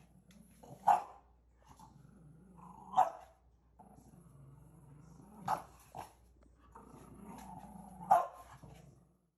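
A dog barking four times, a few seconds apart, and growling low between the barks.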